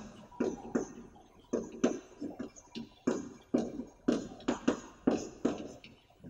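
Chalk writing on a blackboard: a quick run of short taps and scrapes as the letters are stroked on, about two or three a second.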